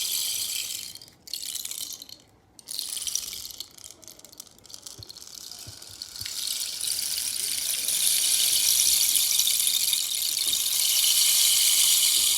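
Rainstick pouring, its pellets trickling down inside with a high, rain-like hiss. The hiss breaks off twice briefly in the first few seconds, then swells louder from about halfway.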